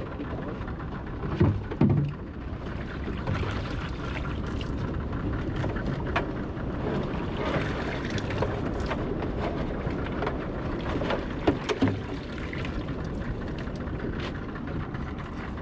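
Steady wash of wind and sea around a small open fishing boat, with a few small knocks and splashes as bait is handled in the boat.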